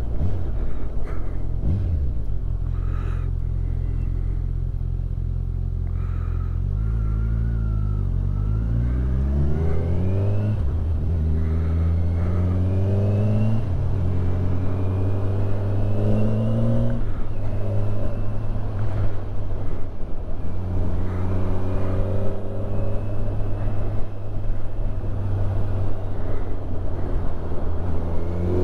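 Kawasaki Ninja 1000SX's inline-four engine heard from the rider's position. It runs steadily at low revs for the first several seconds, then pulls away: its pitch climbs again and again, each climb cut off and dropping as it shifts up a gear, and it climbs once more near the end.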